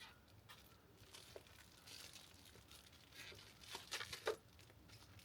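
Faint crinkling and rustling of plastic shrink bags as whole chickens are bagged and handled, with a cluster of louder crinkles about four seconds in.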